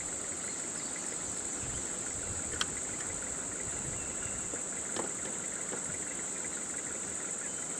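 Steady high-pitched insect drone from the forest over a low idling engine rumble, with two brief sharp clicks about two and a half and five seconds in.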